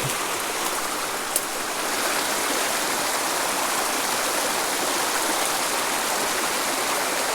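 Small mountain creek running over rocks, a steady rush of flowing water, with a single light click about a second and a half in.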